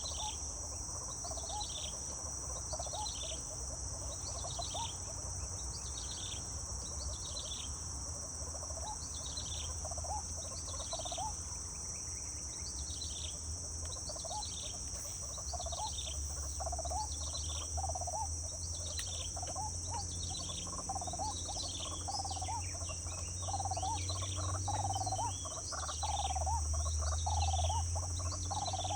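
Outdoor insect chorus: a steady high-pitched buzz, with repeated falling chirps about once a second and lower repeated calls. Underneath is a low rumble that grows louder near the end.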